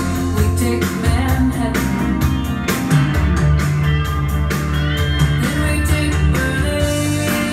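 Rock music with guitar, bass and a steady drum beat, and a singing voice.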